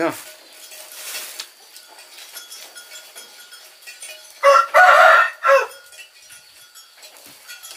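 A rooster crowing once, about four and a half seconds in: a loud pitched call in three parts lasting just over a second.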